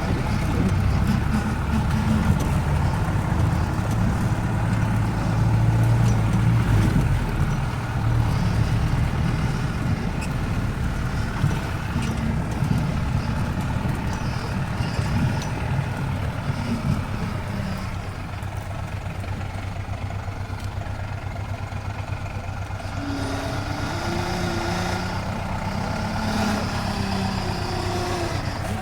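Off-road vehicle's engine running as it drives along a rough trail, with steady low engine rumble that is strongest in the first several seconds.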